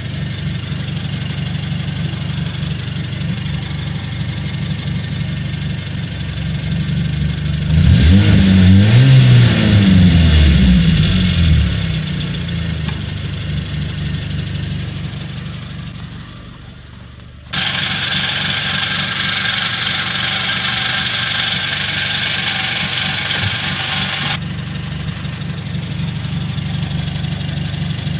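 Renault Mégane Coupé Phase 1 idling, heard from under the car at an exhaust fitted with a new flexible pipe and resonator; the revs rise and fall once about eight seconds in. Past the middle a steady hiss starts suddenly and stops again several seconds later.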